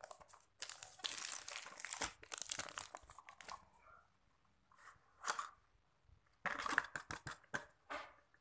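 Plastic wrapping being torn off and crinkled from a small cardboard toy box, and the box's cardboard torn open, in several bursts of tearing and crinkling.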